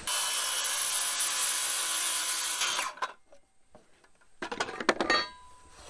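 Circular saw cutting across an engineered-wood LP SmartSide lap siding board, running steadily for about three seconds and then stopping. A few light knocks and rattles follow near the end.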